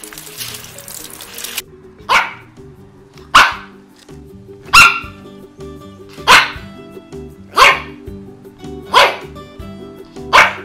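A dog barking single, sharp barks at an even pace, about one every second and a half, seven in all, starting about two seconds in.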